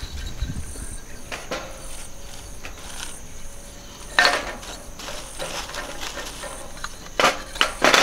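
Split wooden kindling sticks clacking against each other and against the stainless-steel grate of a pyramid fire pit as they are laid in by hand. There is a loud knock about four seconds in and two more sharp knocks near the end, with light clicks between.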